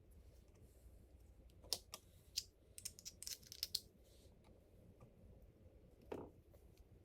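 Faint scattered clicks and taps of small plastic and metal grinder parts being handled, a quick run of them in the first half, then one soft knock near the end.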